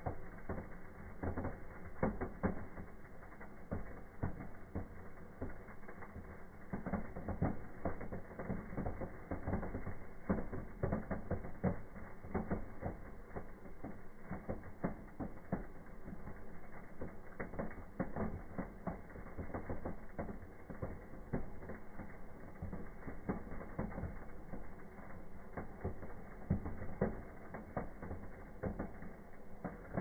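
Firework fountain and sparklers burning in a fireplace: a dense, irregular crackle of sparks that keeps up throughout.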